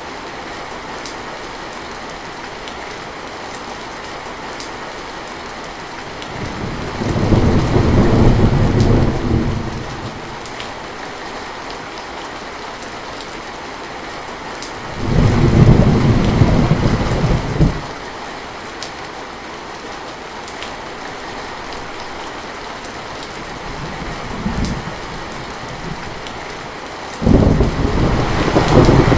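Heavy rain falling steadily, with three loud low rumbles of thunder, each lasting two to three seconds, starting about seven, fifteen and twenty-seven seconds in, and a brief fainter rumble just before the last.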